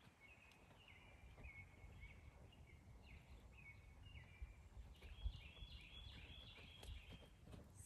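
Faint songbird singing a steady run of short, repeated chirping notes over a low rumble of wind on the microphone, with an occasional low thump.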